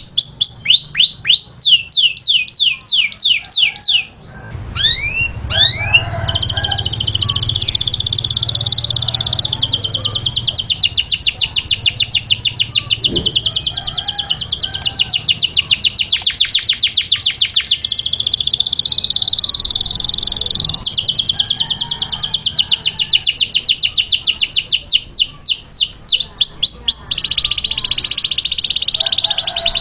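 Domestic canary singing a run of rapid trills. It opens with quick falling sweeps, breaks off briefly, then holds a long, fast, evenly repeated trill, and switches to a different phrase near the end.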